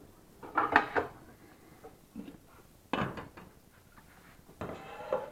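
Black non-stick frying pans being handled and set down on a gas hob: three separate bursts of knocking and clattering of the metal pans.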